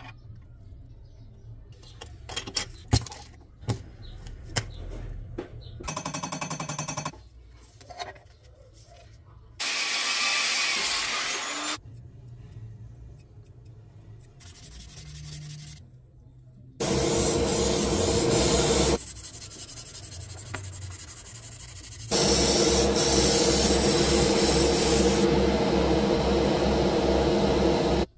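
Restoration work on a diecast Toyota Supra model's door: clicks and taps of handling, then short spells of tool noise and rubbing. After that come three steady hissing spells of paint spraying, the longest, about six seconds, last, with a low pulsing beneath it.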